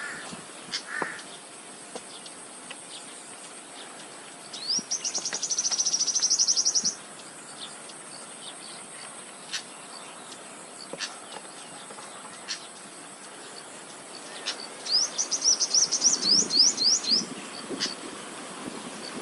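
Wild bird calls: two bouts of rapid, high, repeated chattering notes, each lasting two to three seconds, with scattered single chirps between them over a steady high hiss.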